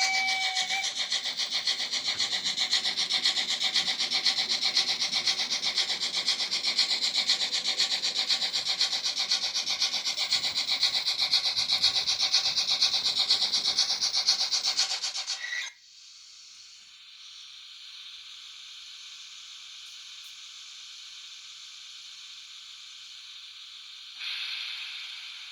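Sound decoder of a Märklin H0 BR 94.5-18 model steam locomotive playing steam sounds through its small loudspeaker. A whistle tone ends just under a second in, then quick, even chuffing runs until it cuts off abruptly about two-thirds of the way through. A steady steam hiss follows, with a brief louder hiss near the end.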